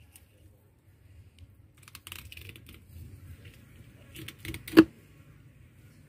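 Knife cutting along a whole tuna's backbone on a wooden table: scattered light clicks and scrapes, a short crackly rustle about two seconds in, and one sharp knock near the end, over a low steady hum.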